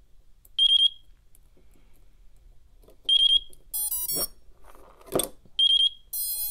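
FrSky Taranis Q X7 radio beeping in bind mode: a short, high, warbling triple beep that repeats about every two and a half seconds. From about four seconds in, a battery is plugged into the Emax BabyHawk and other stacked electronic beeps join in, with a couple of short rustles and clicks from the connector and handling.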